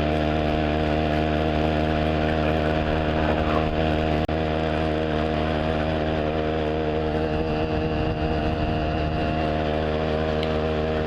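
Riga moped's small two-stroke engine running at a steady, unchanging pitch while cruising.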